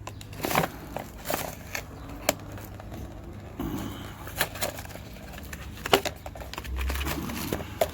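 A small cardboard accessory box being opened and handled by hand: irregular clicks, crackles and rustles of cardboard flaps and packing, a few of them sharper and louder.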